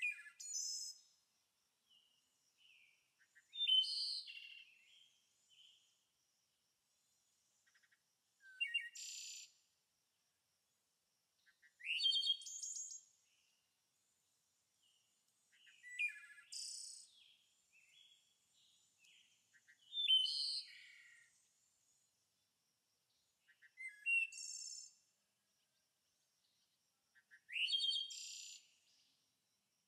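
Songbird singing: short, bright phrases of chirps and trills, one about every four seconds.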